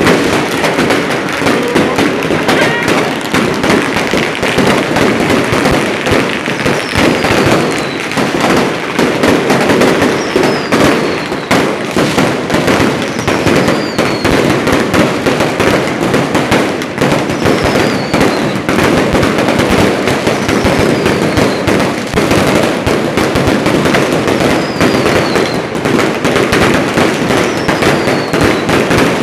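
Strings of firecrackers going off in a continuous dense crackle of rapid bangs, set off to celebrate a newly built boat. A short falling whistle sounds about every three to four seconds.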